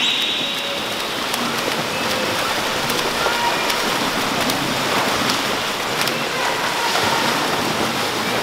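Several swimmers splashing through backstroke in adjacent lanes: a steady rush of churning water from arms striking the surface and kicking feet.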